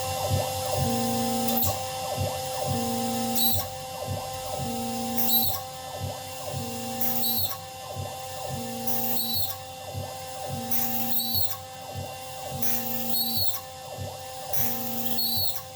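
A small motorized machine running through a repeating cycle about every two seconds, with a steady hum underneath and a brief rising-and-falling whir at each turn of the cycle.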